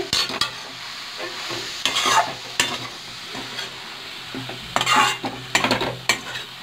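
A steel spatula stirring vegetable momo filling around a metal kadhai, in several short scraping strokes, over a quiet steady sizzle of frying.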